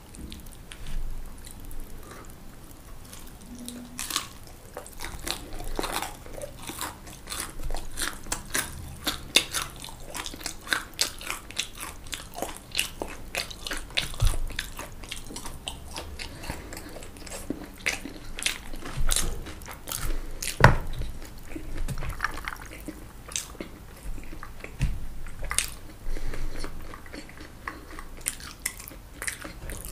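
Close-miked chewing and crunching of crispy fried food: a dense run of small crackling clicks with a few louder crunches, the sharpest about two-thirds of the way through.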